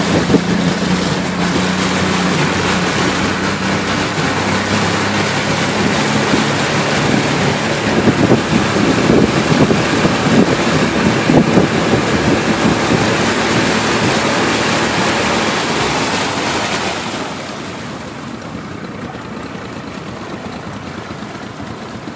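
Boat motor running under a loud, steady rush of wind on the microphone and water, with a low engine hum in the first few seconds. Near the end the noise drops off and the hiss fades.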